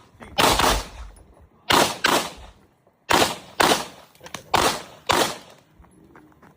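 Beretta 92 pistol fired rapidly in double taps: eight shots in four quick pairs, each pair about a second and a half after the last, with a short echo after each shot.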